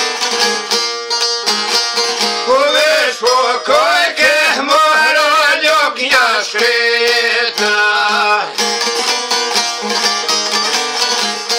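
Long-necked plucked lute played in a quick, steady repeated pattern. A man sings over it from about two and a half seconds in until about eight and a half seconds, in a wavering, ornamented line.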